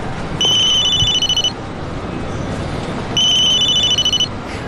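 Mobile phone ringing: two rings of a high electronic trill, each about a second long and a couple of seconds apart, over steady background noise.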